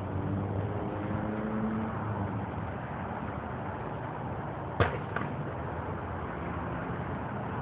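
An engine idling steadily under a hiss, with a sharp click a little under five seconds in and a fainter one about half a second later.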